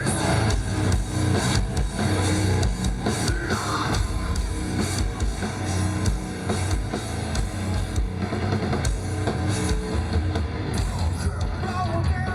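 Hard rock band playing live and loud: a drum kit pounding out a steady beat under heavy electric guitars and bass.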